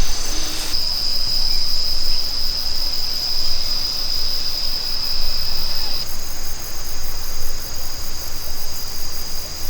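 Insects singing in a steady, high-pitched drone, with a second, higher-pitched song joining about six seconds in, over a low rumble.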